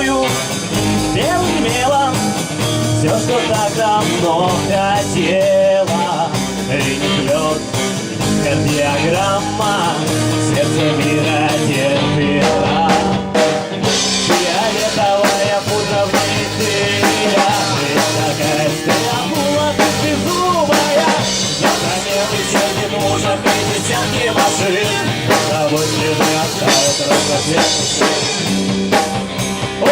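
Amateur rock band playing a song on drum kit and guitars, with a wavering lead melody line over the top.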